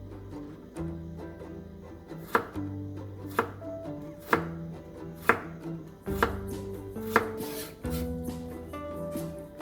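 Knife chopping on a cutting board in single sharp strokes, about one a second, over background music.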